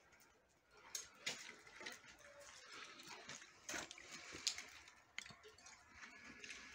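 Near silence with faint scattered clicks and rustles.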